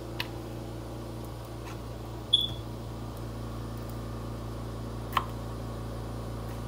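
A few sharp taps of a kitchen knife striking a bamboo cutting board as broccoli florets are cut. The loudest tap, a little over two seconds in, has a brief high ring. A steady low hum runs underneath.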